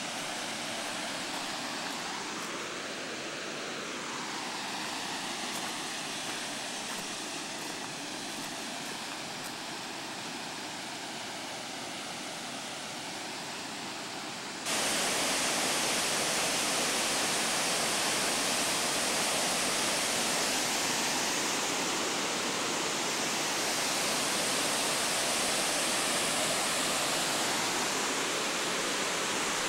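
Steady rushing hiss of a small waterfall and stream. About halfway through it jumps suddenly louder and brighter and then holds steady.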